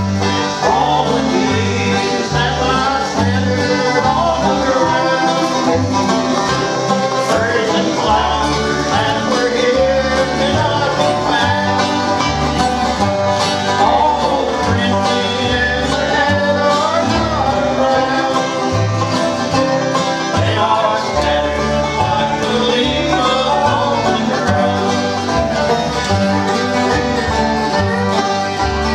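Bluegrass band playing: banjo, fiddle and acoustic guitars over an upright bass walking out a steady beat.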